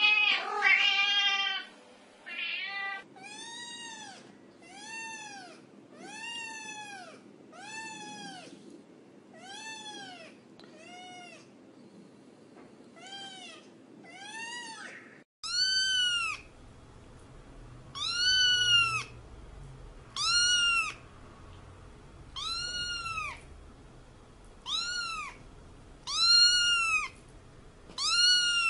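A cat meowing over and over, about one meow a second, each rising and then falling in pitch. After a short break about halfway through, the meows become louder and higher-pitched.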